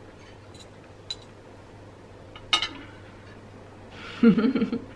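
Metal cutlery clicking a few times against plates while two people eat, the sharpest click about halfway through. About four seconds in, a loud, short voiced sound without words, a woman's appreciative hum of enjoyment at the food.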